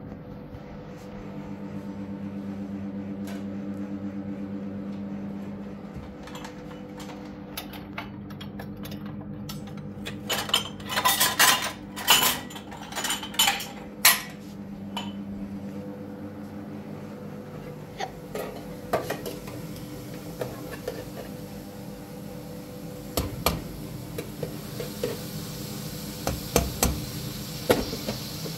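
Dishes and cutlery clattering and clinking, loudest in a burst of sharp clatters about ten to fourteen seconds in, with scattered lighter clinks later, over a steady low hum.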